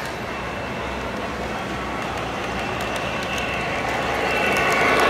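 O-gauge three-rail model train running on the layout, its rolling rumble growing louder as it approaches. A steady high ringing tone comes in over the last couple of seconds.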